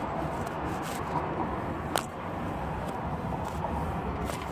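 Wind rumbling on the phone's microphone, with one sharp click about two seconds in.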